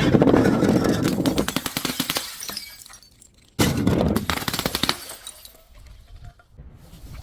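A glass bottle breaking and crunching in two bouts: a sudden crack followed by a couple of seconds of dense crackling that fades, then a second crunch about three and a half seconds in, with faint scattered crackles after.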